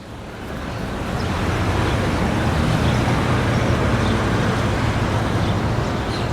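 Steady low engine rumble of motor traffic or heavy machinery, fading in over the first couple of seconds, with a few faint high chirps or squeaks on top.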